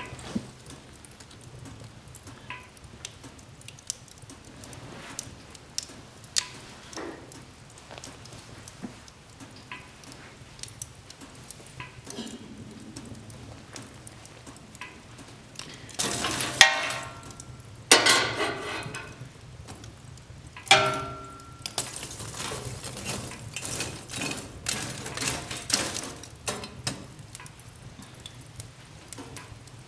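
Wood fire crackling, with sharp pops scattered throughout. Just past halfway comes a louder spell of dense crackling, popping and hissing that lasts several seconds.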